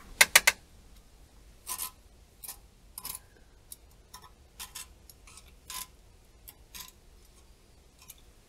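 Scraping and rubbing inside a concrete pipe trap as a hand fishes out old bait. Three quick sharp clicks come first, then scattered brief scrapes.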